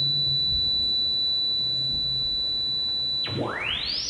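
A steady high electronic sine tone. About three seconds in it plunges steeply in pitch, then sweeps back up in a rising arc to an even higher pitch.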